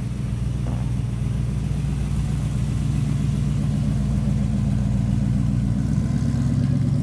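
Chevrolet pickup's engine running low and steady through its dual exhaust as the truck rolls slowly past, getting gradually louder as it comes close.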